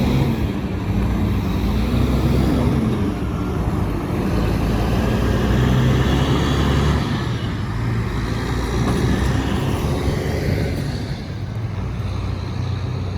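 Road traffic driving over a railroad grade crossing once the gates are up: car and truck engines running with a steady low rumble and tyre noise.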